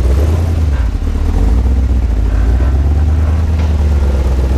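Rock-crawling off-road rig's engine running steadily at low revs as it crawls over rocks, heard from inside the cab as a strong, steady low-pitched hum.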